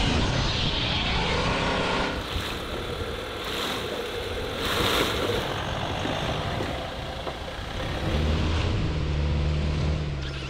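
Medium SUVs driving slowly over a dirt off-road course: engine running under a busy rush of tyre and ground noise, with a couple of brief louder washes in the middle. From about eight seconds in, a steadier low engine hum comes in.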